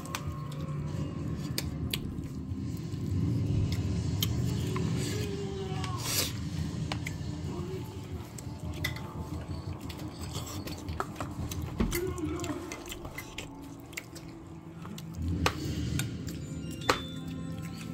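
Cutlery clinking against dishes at a meal table: a few sharp, scattered clinks over a low steady background murmur.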